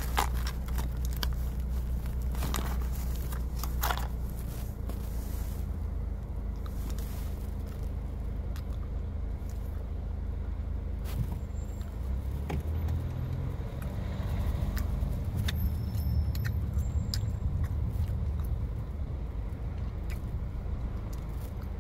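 Steady low rumble of a car's engine and road noise heard from inside the cabin, with a few light clicks and rustles now and then.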